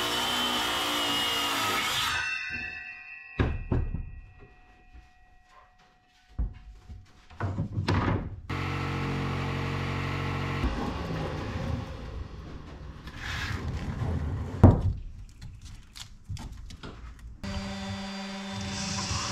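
Cordless circular saw finishing a cut through a mahogany board, then spinning down about two seconds in, followed by several wooden knocks and thuds as tools and the board are handled. A small power tool runs briefly in the middle, with one sharp knock later on. Near the end a cordless drill with a drum sanding attachment starts up and runs steadily.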